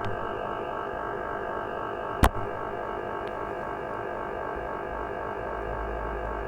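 Shortwave receiver audio on 15 m from an inverted-V half-wave dipole: a steady buzz of many stacked tones over hiss, interference radiated by a power inverter running in the next room. A single sharp click comes about two seconds in.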